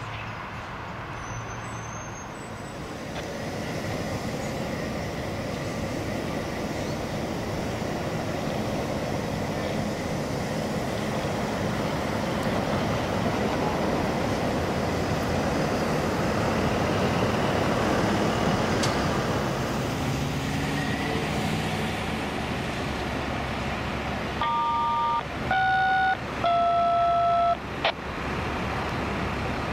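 Heavy machinery at a railroad track construction site running with a steady rumble that slowly grows louder. Near the end a horn sounds three blasts, two short and one longer, each on a two-note tone.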